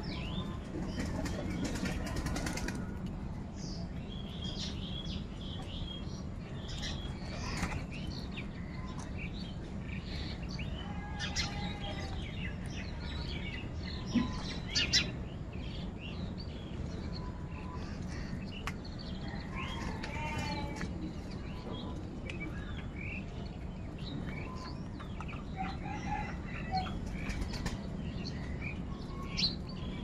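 A flock of house crows at a food bowl: scattered caws and calls with wing flaps, and a couple of sharp clicks about halfway, over a steady low background noise.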